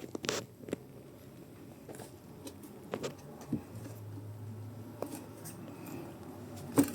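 Light scattered clicks, ticks and rustles of hands handling small plastic engine parts and rubber fuel hose while the hose is pushed onto its fitting. A faint low hum runs through the middle.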